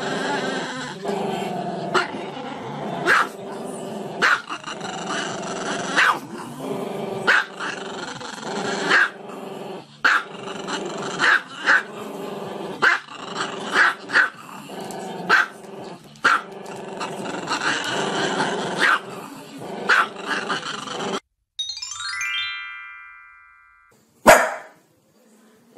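A small long-haired dog howling over music with a regular beat. After a cut near the end comes a short rising tone, then a couple of brief sharp sounds.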